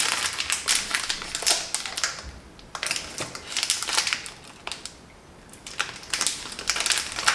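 Plastic wrapper of a packaged gingerbread cake crinkling and crackling as it is torn open by hand. The crackling comes in dense bunches, eases off about five seconds in, and starts again near the end.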